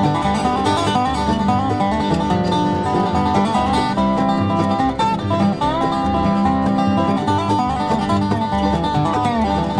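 Instrumental bluegrass played by an acoustic band of Dobro, banjo, guitar and bass, with quick picked notes, a steady bass and sliding notes from the Dobro, from a 1978 vinyl record.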